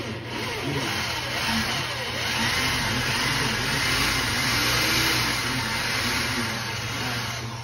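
Corded electric drill running steadily, boring a hole into a wall.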